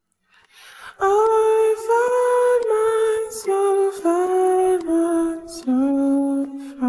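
Solo sung vocal with no instruments: a wordless melody of held notes stepping down in pitch, starting about a second in after near silence.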